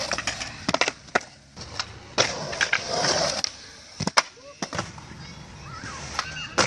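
Skateboard on concrete: wheels rolling with a run of sharp wooden clacks from the board popping, flipping and landing, some coming in quick pairs.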